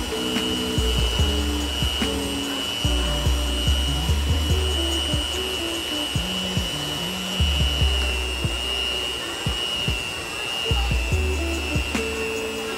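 Cuisinart 220-watt electric hand mixer running steadily with a high whine, its beaters working flour into a crumbly cookie dough, with scattered clicks. Music with a moving bass line plays along.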